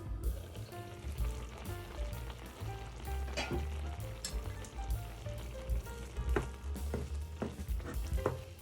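Food sizzling in a frying pan, with a few sharp clicks of a utensil against the pan as it is stirred.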